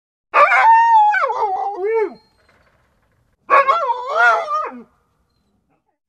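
A dog howling twice: two drawn-out calls with a wavering pitch that drops at the end of each. The first lasts about two seconds, the second a little shorter.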